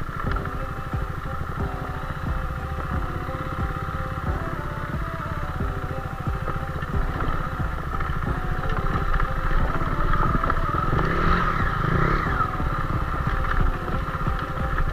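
KTM Duke motorcycle engine running at low revs as the bike rolls down a rough dirt track, with a brief rise and fall in revs about ten to twelve seconds in.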